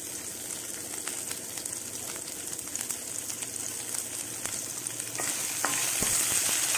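Freshly added sliced onions sizzling in hot mustard oil in a kadai, stirred with a wooden spatula, with scattered light crackles; the first stage of frying them to golden brown. The sizzle grows louder about five seconds in.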